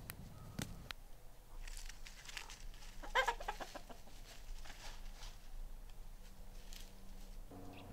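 Chicken clucking, with the loudest burst of calls about three seconds in and a few sharp clicks near the start.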